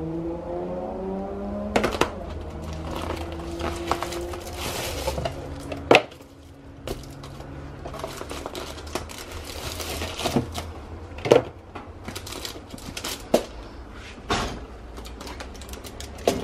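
Aluminium foil food trays and plastic film being handled: crinkling and rustling, broken by a series of sharp clatters and knocks as the trays are set down and one is pushed onto an oven rack.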